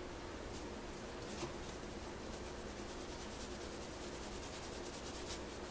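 Faint, quick rubbing strokes of a cloth rag on a small painted resin figure, wiping off the antiquing paint, over a steady low hum.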